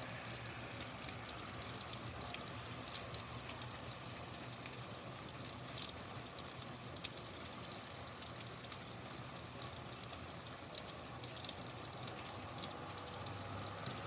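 Steady rain falling: an even hiss with many scattered drop ticks.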